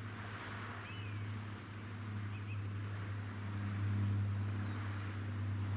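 A steady low mechanical hum over a soft hiss, with a few faint bird chirps about a second in and again around two and a half seconds in.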